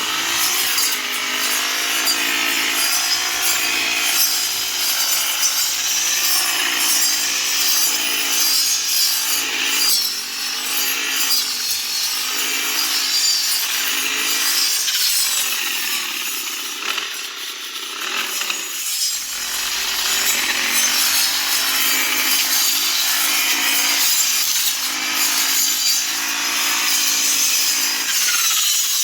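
Grass-cutting machine running and cutting grass: a loud, steady mix of engine and cutter noise, easing briefly about two-thirds of the way through.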